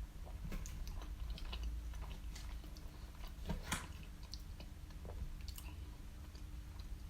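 A person chewing a mouthful of halal snack pack (doner kebab meat, cheese and chips in sauce), with irregular small wet smacks and clicks. The loudest are about three and a half seconds in. A steady low hum runs underneath.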